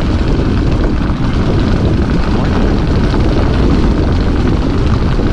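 Steady rumbling noise of a car on the move, road and wind noise heavy in the low end.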